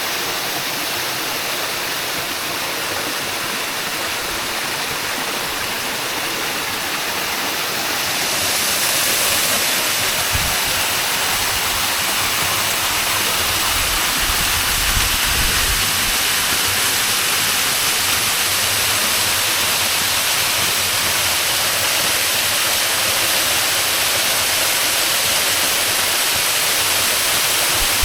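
Waterfall rushing steadily as an even wash of falling water, growing louder about eight seconds in.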